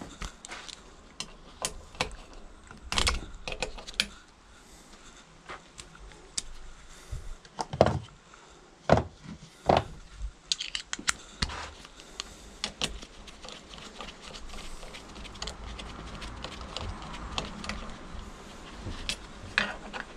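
Hand tools and metal engine parts clinking and knocking as a moped engine's ignition is taken apart: scattered sharp clicks, with a quick run of them about ten to eleven seconds in.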